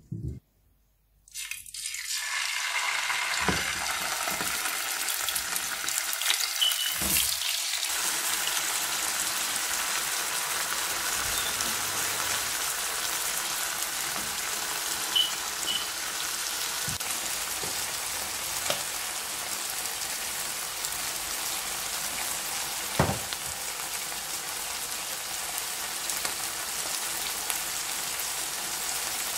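Chicken liver and sliced onion sizzling steadily in hot oil in a frying pan. The sizzle starts suddenly about a second and a half in as the liver hits the oil, with a few short clicks along the way.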